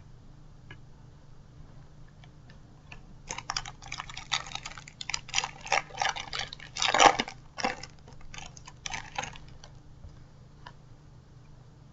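Plastic wrapper of a Match Attax trading-card packet being torn open and crinkled by hand: a dense run of crackling rustles starting about three seconds in, loudest a little past the middle, dying away a couple of seconds before the end.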